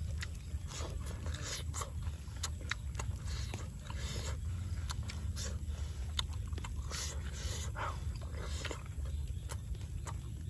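Close-up mouth sounds of a person chewing grilled pork head meat: repeated short wet clicks and smacks, over a steady low hum.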